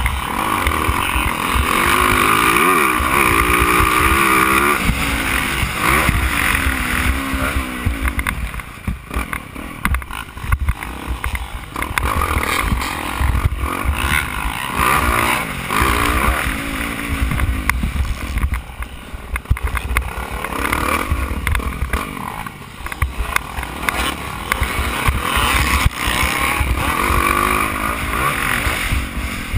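Motocross bike engine heard on board at racing speed, revving up and falling back over and over as the rider accelerates, shifts and backs off for corners.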